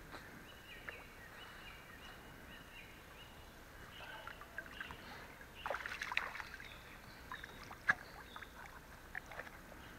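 Water splashing as a hooked fish is scooped into a landing net beside a boat and the net is lifted from the river, with a sharp knock about 8 seconds in.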